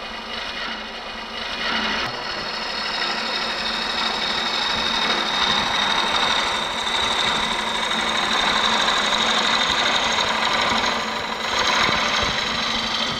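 Ellsworth bowl gouge making a bevel-rubbing cut on a bowl spinning on a wood lathe: a steady hiss of wood shavings peeling off the spinning blank.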